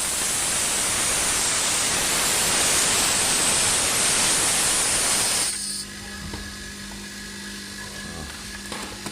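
A loud, steady hiss of air escaping cuts off suddenly about five and a half seconds in. Underneath it, and alone after it, is the low, steady hum of a homemade air compressor built from a 12,000 BTU air-conditioner rotary compressor, running quietly.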